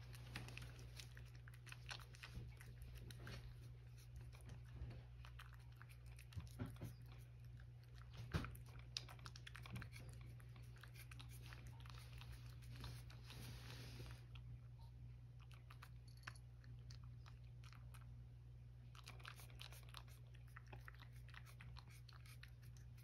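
A cat chewing and eating watermelon from a dish: faint, irregular small clicks and bites, with one louder bite about eight seconds in, over a steady low hum.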